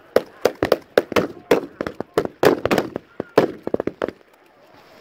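Rifles firing blanks in rapid, irregular shots, several a second from more than one gun, each crack with a short echo; the firing stops about four seconds in.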